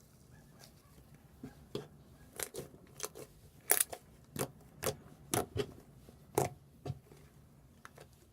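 Fluffy slime being squeezed and poked, giving an irregular string of about a dozen sharp pops and clicks, loudest in the middle.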